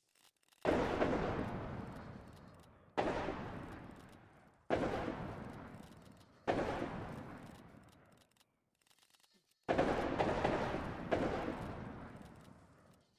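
Six distant musket shots at uneven intervals, each a sudden report followed by a long rumbling echo that fades over about two seconds; the last two come about a second and a half apart.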